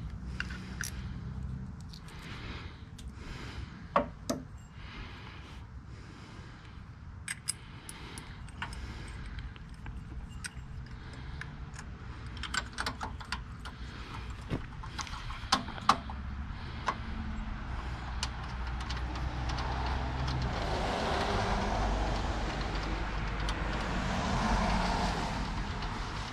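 Scattered metallic clinks and knocks of hand tools and parts being handled on a snowblower, over a steady low rumble. A hiss builds up over the last several seconds and then fades.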